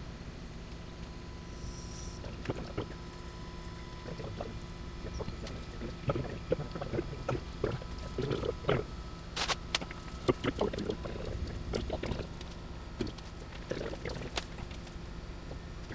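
Irregular scraping, rustling and sharp clicks of liquid rubber coating being worked onto the backing of boat carpet, over a steady low hum. The handling sounds start a few seconds in and are busiest in the middle.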